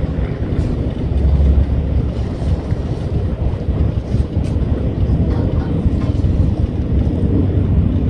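Wind buffeting a phone microphone: a loud, steady low rumble of gusting noise.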